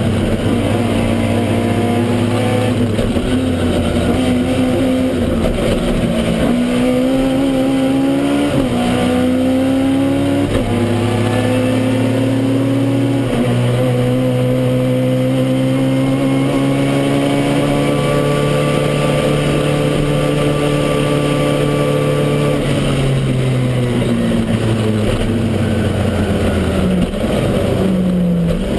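Toyota Starlet KP61 rally car engine heard from inside the car at full throttle. The engine note climbs and drops sharply at several gear changes in the first half, holds high, then falls away near the end.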